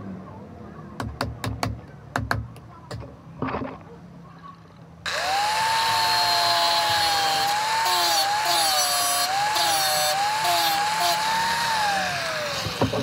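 A few sharp knocks, then an electric angle grinder switches on about five seconds in and grinds metal. Its whine wavers as the disc is pressed into the work and falls as it winds down near the end.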